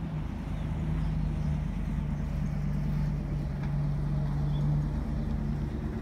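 An engine running steadily nearby, giving a low, even hum.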